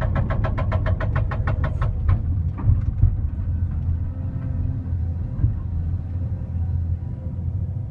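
Excavator-mounted hydraulic breaker hammering rock in rapid, even blows, about seven a second. It stops about two seconds in, then gives a couple more blows. The excavator's engine runs steadily underneath, heard from the operator's cab.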